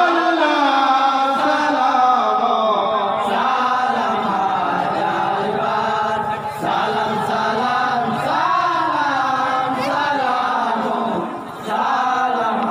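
Men's voices chanting a Bengali jari gan, the folk song of the Karbala story, in long held phrases, with two brief breaks between lines, about six and a half and eleven and a half seconds in.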